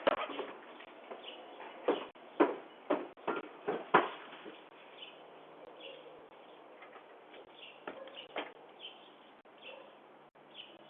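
Footsteps, a run of sharp thuds about two a second for the first four seconds, then only faint scattered clicks, heard through a Ring video doorbell's narrow-band microphone.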